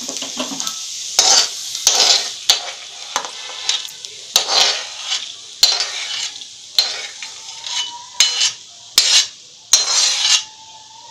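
Steel spatula scraping and tapping against a steel kadhai, scraping out toasted charoli nuts in ghee, in a string of sharp clicks and short scrapes. Sizzling of the hot ghee dies away about two seconds in.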